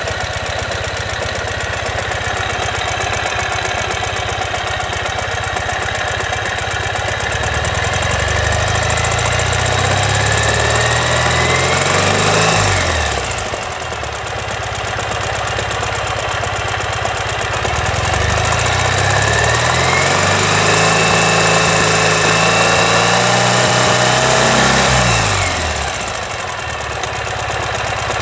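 2015 Ural Ranger's boxer-twin engine idling and revved up twice, each rev climbing slowly for several seconds before dropping back to idle. It carries an unusual engine noise, the sign of a collapsed front crankshaft bearing.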